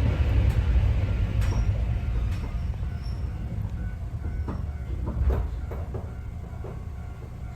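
Inside a Sangi Railway 801-series electric train car (ex-Seibu 701 series) slowing down: the rumble of the wheels and running gear fades steadily. Scattered clanks and a few short squeaks come from the car as it decelerates.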